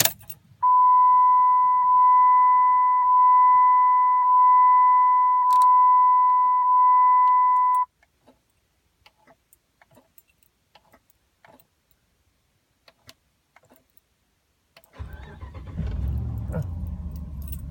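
Dodge Ram's dashboard warning chime sounding as six long steady tones over about seven seconds, then small clicks in near silence. About 15 seconds in, a low mechanical rumble from the truck starts and continues.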